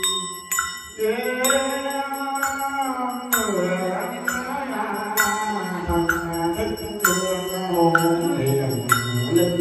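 Buddhist chanting: a voice holding long, slowly sliding notes over a steady beat of struck percussion strokes, a little under two a second, each with a short ring.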